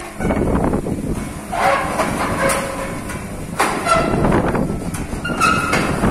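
Steel folding shop door with no top rail being pushed along by hand: the leaves rumble and rattle as they roll, with several short metal squeals.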